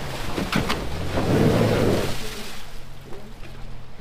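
A 4x4 truck's engine running at low revs while driving off-road through snow, under a loud rush of tyre and snow noise that swells in the middle, with a few sharp knocks in the first second. It goes quieter for the last second or so.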